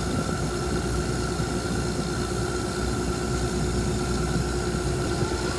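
Plumettaz MiniJet fiber-optic cable jetting machine running steadily, blowing cable into a duct with compressed air: a constant mechanical drone and air hiss with a steady high whine.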